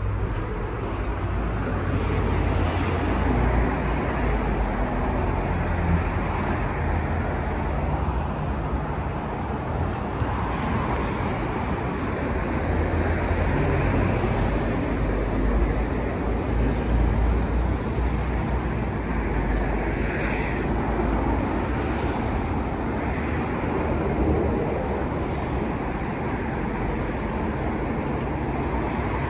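Steady city road traffic, cars and buses passing with a continuous low rumble.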